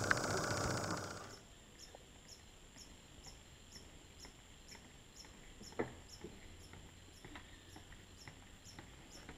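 An insect calling with a high, evenly repeated chirp, about two and a half chirps a second, with a few faint clicks. A louder steady noise cuts off about a second in.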